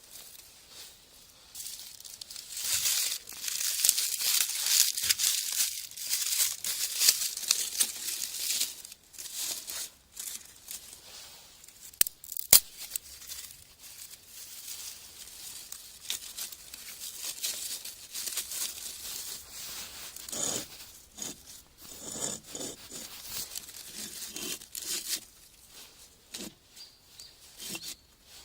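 Paper being crumpled and torn in rustling bursts, with a couple of sharp clicks partway through and scattered lighter rustles and knocks later.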